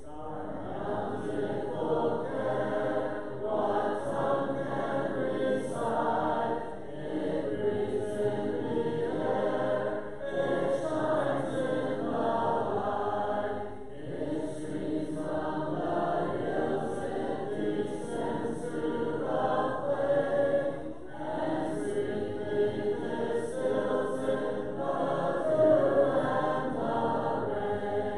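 Church congregation singing a hymn together, unaccompanied voices only, in phrases with short breaks between lines.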